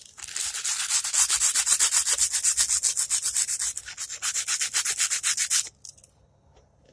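60-grit sandpaper rubbed by hand back and forth over the metal side of a Hi-Point C9 pistol, wearing off its outer finish. The strokes are rapid and even, several a second, and stop abruptly a little before the end.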